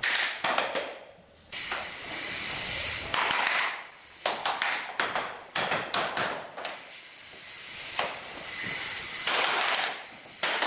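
A hammer knocking on a tapping block or pull bar against laminate floor planks to close their joints: irregular runs of sharp knocks, with a couple of stretches of hissing, rustling noise between them.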